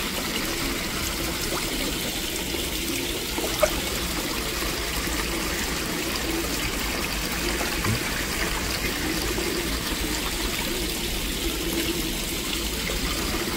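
Steady trickle and splash of running water in a backyard koi pond, where water spills down from the upper pond into the lower pool. A single small click about three and a half seconds in.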